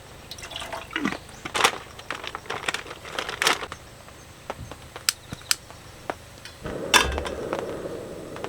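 Plastic food packaging crinkling and being torn and handled, with small clicks and knocks. About two thirds of the way in, a sharp click and a steady rushing noise start and carry on.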